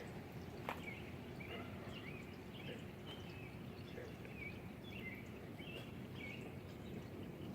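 Small birds chirping in short repeated calls over a steady low background rumble, with one sharp click about a second in.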